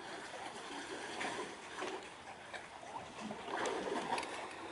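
Water lapping and splashing in small irregular spurts, with no steady engine sound.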